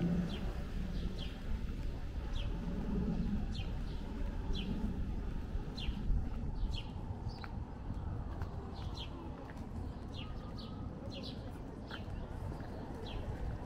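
A small songbird chirping over and over, short downward-sliding notes one or two a second, more frequent in the second half, over a steady low rumble of street background noise.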